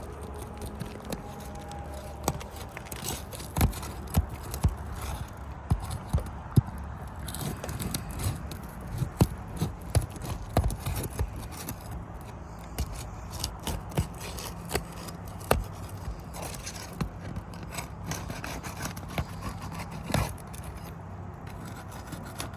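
Metal roof snake being worked under asphalt shingles to break their seal strips: irregular scraping and rubbing with many sharp clicks and pops as the sealed shingles come unstuck.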